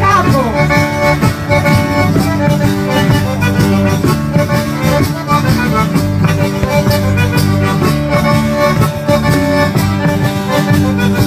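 Music: held chords and a melody over a quick, steady percussion beat.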